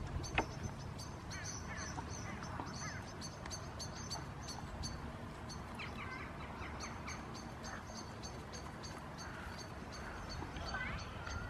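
Birds calling: a run of short high chirps repeating a few times a second, with other scattered calls, over a low steady rumble. A single sharp click comes shortly after the start.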